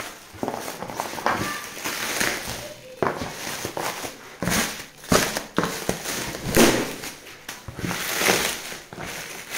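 Plastic packaging being handled: a black plastic bag and clear stretch wrap around a parcel of cardboard boxes, crinkling and rustling unevenly, with a sharper crackle now and then.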